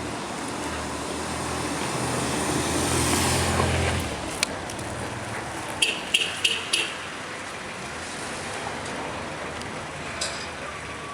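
A motor vehicle drives past, its engine hum growing louder for about four seconds and then dropping away. A quick cluster of four short, sharp sounds follows about six seconds in, over a steady street background.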